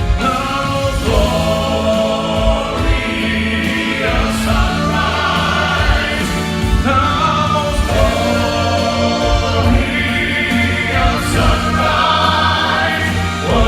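Gospel vocal quartet singing in harmony over instrumental accompaniment, with steady low bass notes and a regular beat.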